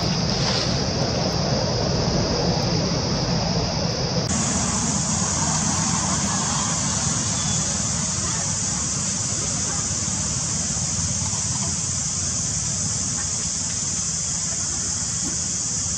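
Steady outdoor background noise: a low rumble under a continuous high-pitched hiss or buzz, which suddenly gets broader and brighter about four seconds in.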